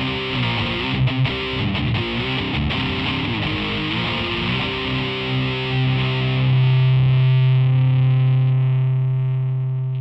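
Electric guitar played through a Boss ME-20 multi-effects pedal with its overdrive/distortion on: a short run of distorted notes, then a held low note or chord about halfway through that sustains and slowly fades.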